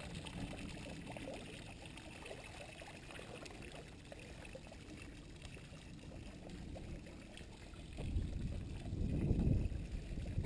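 Small ornamental fountain's water splashing and trickling steadily into its stone basin. A louder low rumble of wind on the microphone comes in about eight seconds in.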